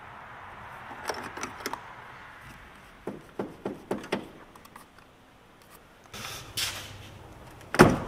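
Clinks and rattles of a hand wrench on metal battery hardware as a dead car battery is unbolted, then a rustle and a loud knock near the end as the heavy battery is lifted out of its tray.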